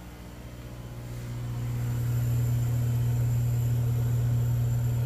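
Steady low electric hum from a laser engraver's running air and water pumps, swelling over the first two seconds and then holding even.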